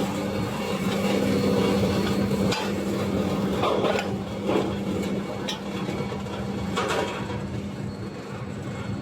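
Metal-processing line machinery running with a steady hum, overlaid by irregular metallic clanks and knocks, about half a dozen between two and a half and seven seconds in.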